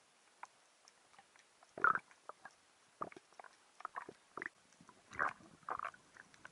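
Underwater handling noise of a speared seabream on the spear shaft: irregular clicks and short knocks, the loudest about two seconds in and twice more a little after five seconds in.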